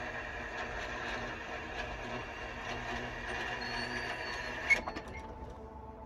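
Railroad crossing warning bell ringing steadily as the crossing gates rise, cut off with a sharp click about three-quarters of the way through. Near the end, a faint, steady, distant locomotive horn begins.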